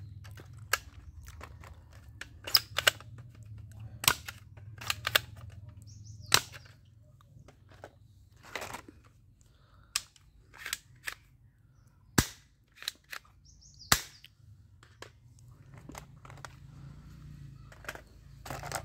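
Hard plastic toy guns clacking and clicking as they are handled and set down on a concrete floor: a string of sharp, irregularly spaced clicks, a few of them much louder than the rest.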